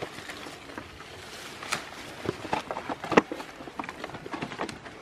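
Goats browsing on cut leafy branches: irregular rustling of leaves and snapping of twigs, with the sharpest crack about three seconds in.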